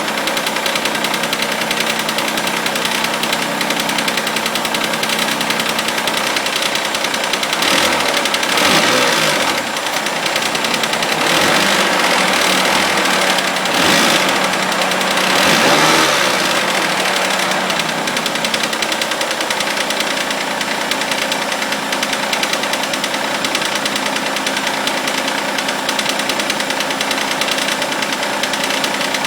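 Third-generation Mitsubishi Eclipse engine idling with a repeating clank, revved several times around the middle and then settling back to idle. The owner takes the clank for lifter tick or a hydraulic tensioner noise.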